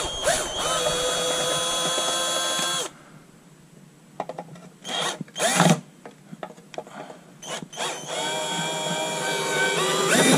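Hyper Tough 18-volt Ni-Cd cordless drill running in two steady whining runs, driving out the screws and bolts on an outboard motor's lower-unit cover. The first run lasts about three seconds and the second starts about eight seconds in, with a few knocks and clicks in between.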